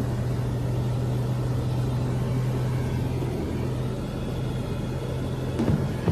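Steady drone of a small propeller airplane's engine heard from inside the cabin in flight, an even low hum under a wide rush of noise.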